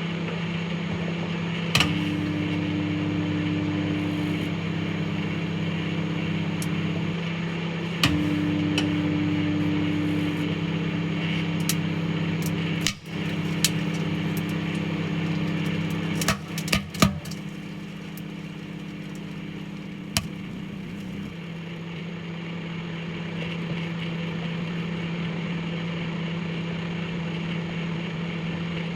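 Microwave oven running with a steady electrical hum, broken by a few sharp clicks and pops.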